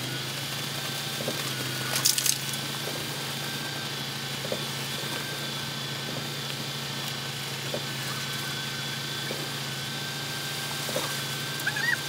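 Concrete pump truck's engine running steadily under load while it pumps concrete, with a sharp metallic clank about two seconds in.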